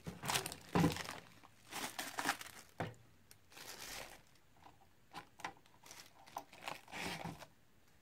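Clear plastic packaging bags crinkling and rustling in short, irregular bursts as hands work them, busier in the first few seconds and sparser toward the end.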